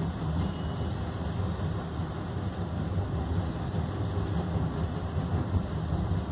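Cat 980M wheel loader's diesel engine working under load as it raises its bucket over a tipper truck: a steady low rumble.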